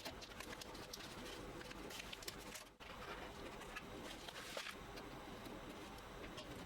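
Pigeons cooing faintly, with scattered faint clicks.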